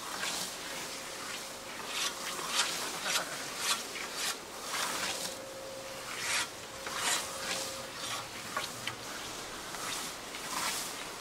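Scythes swishing through long grass. A run of cutting strokes comes about every half second, then the strokes come further apart.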